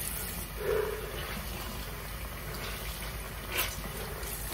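Bathroom sink tap running steadily, with two brief splashes about a second in and near the end.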